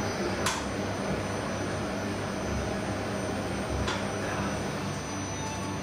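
Bubble Tram gondolas running along their rooftop rail: a steady low mechanical hum with rushing noise, and two short falling squeaks about half a second and four seconds in.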